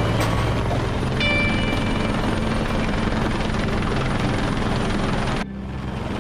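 Rescue helicopter flying low overhead, its rotor and engine running loud and steady. About five and a half seconds in the sound changes abruptly, losing its high end, then carries on.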